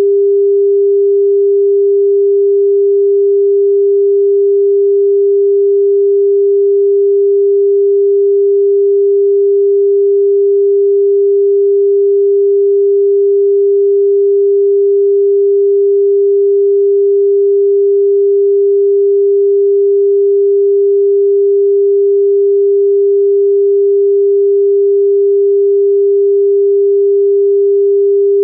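Japanese telephone dial tone: a single steady 400 Hz tone, continuous with no on-off cadence. It signals that the exchange is ready and invites the caller to dial.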